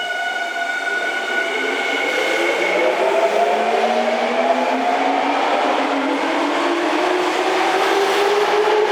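Tokyo Metro 05 series subway train pulling away from the platform: the motor whine rises steadily in pitch, in several tones at once, as the train gathers speed, with running noise growing louder throughout.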